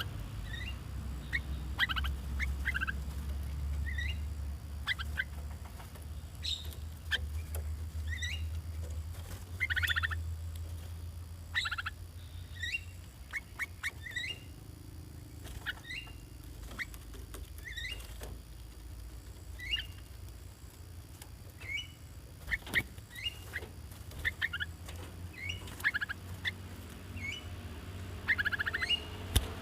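Caged bulbuls calling: short, sharp chirps and quick chattering notes, scattered irregularly throughout, over a low rumble.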